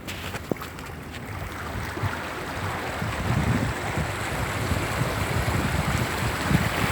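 Steady rush of flood water, with wind buffeting the microphone, growing louder about three seconds in.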